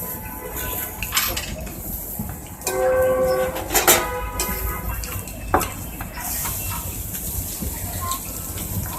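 Street-stall clatter with a few sharp knocks, and a steady horn-like tone that sounds for about two seconds near the middle.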